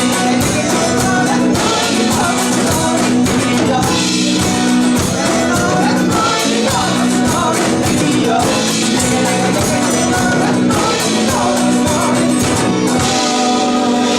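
Irish folk song played live by a band: singing over instruments, with a steady low drone and a rhythmic beat.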